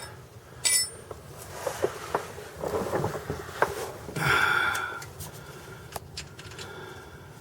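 Metal clinks, clicks and a scrape of hand tools and hardware as the mounting nuts go onto a new clutch slave cylinder. A ringing clink comes about a second in, and a longer scrape follows about four seconds in.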